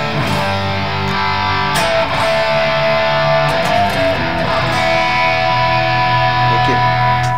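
Electric guitar played through a Valeton GP-200LT multi-effects pedal: sustained, ringing chords and notes, changing about two seconds in and again near five seconds, then stopping at the end.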